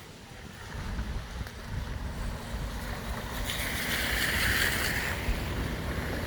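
A vehicle driving through floodwater on a street, its tyres throwing up a rushing spray that swells about three and a half seconds in and eases near the end, over a low rumble.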